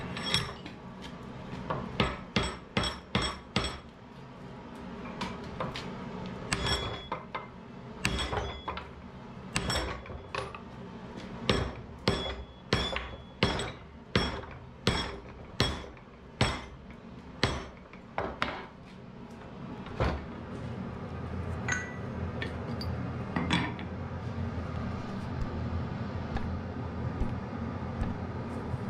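Hand hammer striking a red-hot wrought-iron bar, a long run of ringing blows at roughly two a second in short groups. The hammering stops about two-thirds of the way in, and a few lighter metal clinks follow.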